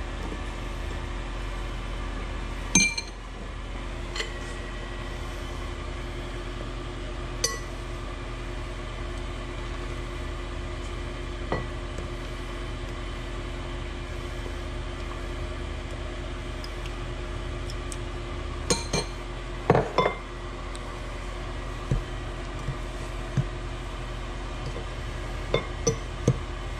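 A metal fork clinks now and then against ceramic and glass bowls as fish fillets are dipped in egg wash and turned in cornmeal. Under the clinks runs a steady low hum.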